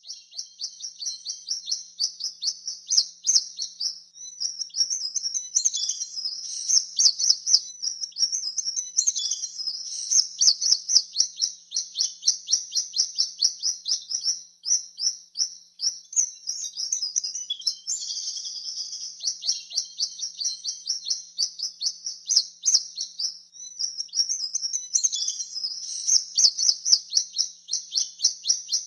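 Swallows twittering: a continuous stream of rapid, high chirps and trills.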